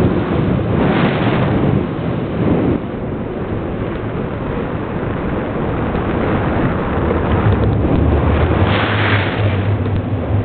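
Wind rushing over the camera microphone during a tandem paraglider flight: a loud, steady rush that swells about a second in and again near the end.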